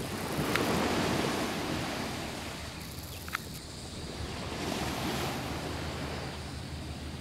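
Small waves washing up on a sandy beach, swelling about a second in and again near five seconds, with wind buffeting the microphone. A brief click sounds near the middle.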